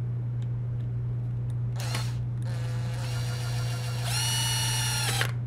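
Cordless impact driver spinning a self-tapping screw into a plastic panel: a short burst about two seconds in, then a steady motor whine that rises in pitch about four seconds in and cuts off just before the end. A steady low hum runs underneath.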